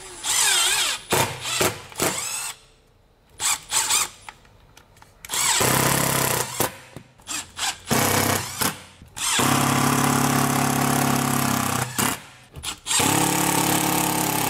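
Compact Milwaukee cordless drill driver driving screws through drywall into plywood backing. A few short trigger bursts come first, then three longer runs of the motor at a steady pitch, with brief pauses between them.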